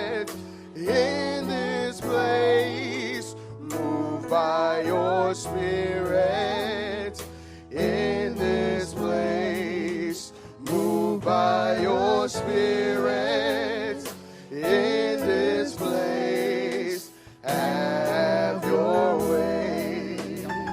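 Gospel worship singing: a voice holding long, wavering vibrato phrases over sustained low keyboard notes, with regular sharp ticks.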